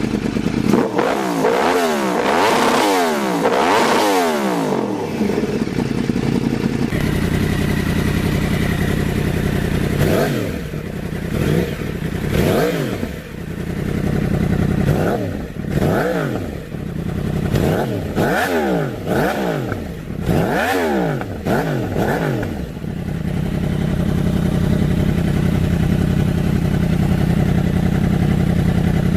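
Yamaha R1 sportbike inline-four with an aftermarket exhaust, revved in quick rises and falls from a standstill. It settles to a steady idle, then gives a run of about eight sharp throttle blips, each rising and dropping back, before idling steadily again near the end.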